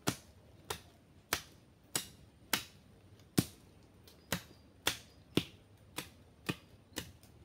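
Tool chopping wood: about a dozen sharp, evenly spaced strokes, roughly two a second.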